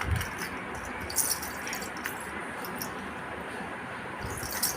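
Baby making a few small, faint squeaks over a steady background hiss, with light clicks and rustles.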